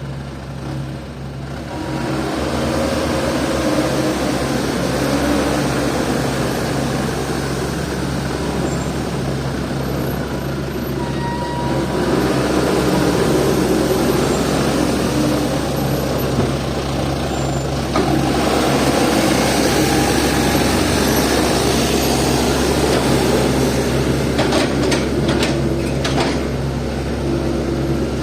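Heavy diesel engines of an excavator and a sunk dump truck running hard under load. The sound swells about two seconds in and again about eighteen seconds in, with a few sharp clicks near the end.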